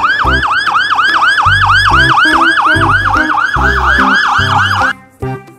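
Electronic police siren in a fast yelp, its pitch sweeping up and down about five times a second, stopping abruptly near the end. Background music plays underneath.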